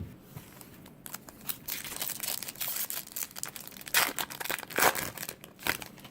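Plastic wrapper of a Bowman baseball-card pack being crinkled and torn open: a run of crackling rustles, with two louder bursts about four and five seconds in.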